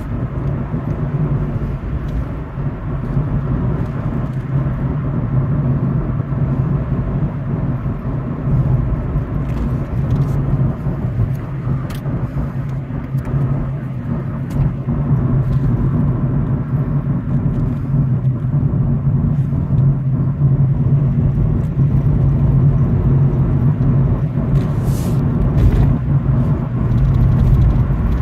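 Cabin noise inside a moving Honda Civic cruising at about 35 mph: a steady low engine hum over tyre and road rumble, growing slightly louder in the second half.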